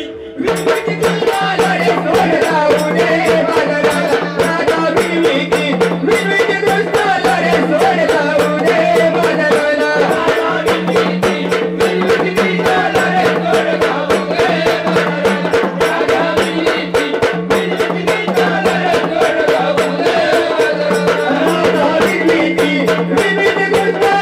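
Marathi Waghya folk ensemble playing a fast, dense percussion rhythm over a steady low drone, with a wavering melody line above.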